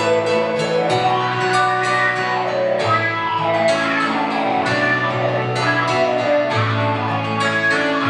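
Piano and guitar playing an instrumental passage, many plucked and struck notes ringing over held bass notes.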